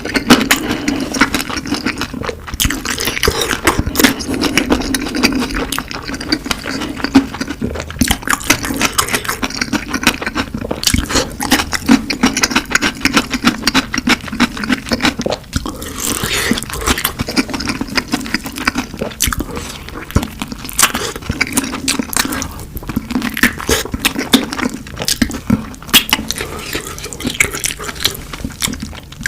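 Close-miked eating of spicy fire chicken: wet chewing, biting and slurping with many small mouth clicks.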